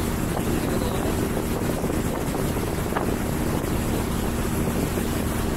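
Motorboat engine running at a steady pitch while under way, with wind buffeting the microphone.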